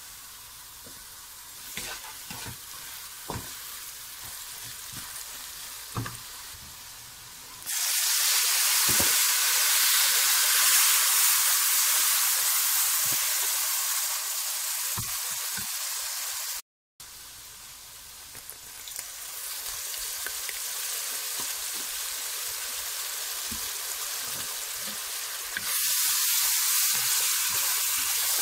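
Sliced onions and spices frying and sizzling in a nonstick wok while a wooden spoon stirs them, with occasional knocks of the spoon. The sizzle turns suddenly much louder about a third of the way in, cuts out for a moment past halfway, then builds again and steps up once more near the end.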